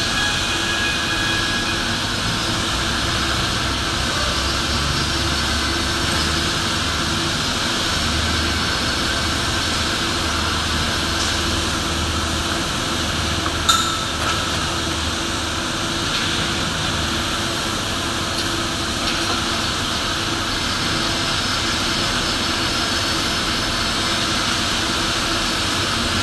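Steady industrial machinery drone filling a large metal fabrication hall, an even rushing noise with a low hum. A single sharp metallic knock a little past halfway.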